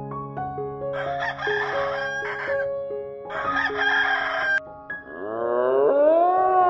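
Rooster crowing twice, about a second in and again past the middle, each crow harsh and lasting over a second, over soft background music. About five seconds in, a long pitched call from another animal begins, rising and then holding.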